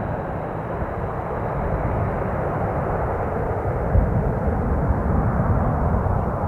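Jet roar of a twin-engine airliner on final approach, receding and slowly getting duller as it flies away, over gusty wind rumble on the microphone. A brief thump about four seconds in.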